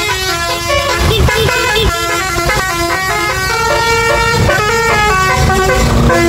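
Tour bus's basuri telolet horn playing a melody of held notes that step from pitch to pitch, several tones at once, over the rumble of engines and traffic.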